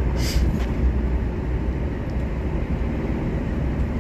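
Inside the cab of a Volvo semi-truck on the move: the engine's steady low drone mixed with tyre and road noise on clear winter asphalt.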